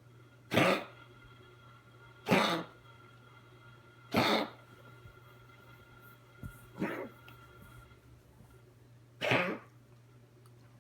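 A dog coughing in single short coughs, five of them about two seconds apart, the fourth one weaker.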